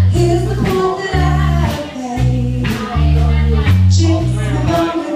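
Amplified live rock band playing: electric guitar, bass and drums with regular cymbal strokes, and a woman singing into a microphone. The bass notes are the loudest part, changing about every half second to a second.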